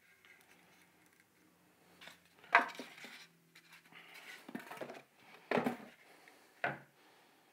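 Handling of compact fluorescent bulbs and a plastic five-socket light head as a bulb is taken from its box and screwed in: a few sharp knocks and clicks, the loudest about two and a half seconds in, with soft rustling between.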